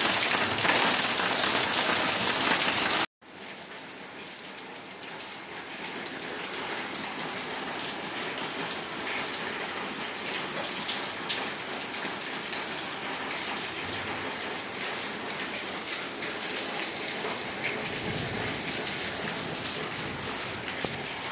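Steady rain falling in a yard and dripping off the edge of a corrugated roof, with a few separate drips. Heavy for about three seconds, then after a sudden break it goes on quieter.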